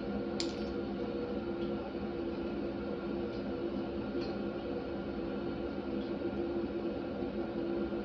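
Steady mechanical hum with a few held tones, with one sharp metallic click about half a second in and a couple of faint ticks later, as head bolts are handled and set on the engine.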